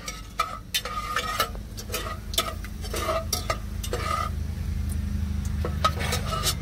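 Metal spoon stirring and scraping in an aluminium pressure cooker, with irregular clinks against the pot wall, some ringing briefly, while oil with whole spices sizzles as they are tempered. A low steady hum runs underneath.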